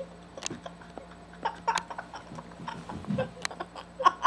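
Scattered short wet smacks and clicks of a boy kissing a dog, with brief bits of giggling.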